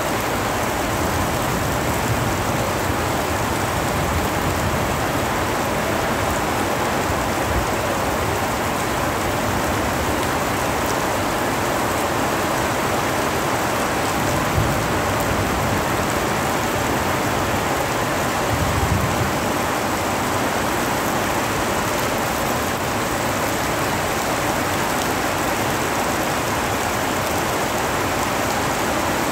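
Heavy rain pouring onto flooded paving, a dense, steady hiss of a downpour.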